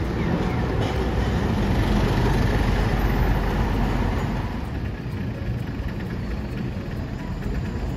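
Steady low rumble of city street traffic at a tram junction: road vehicles' engines running and passing, easing slightly about five seconds in.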